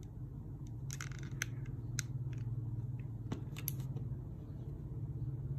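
Several short, sharp clicks and snips over a steady low hum.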